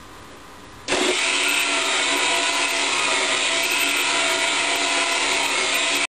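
Small four-wheeled robot's electric drive motors running: a loud, steady motor whine with a hiss that starts suddenly about a second in and cuts off abruptly near the end.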